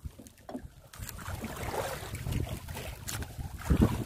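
Choppy sea slapping against a small outrigger fishing boat's hull and bamboo outriggers, with wind buffeting the microphone; one louder slap of water just before the end.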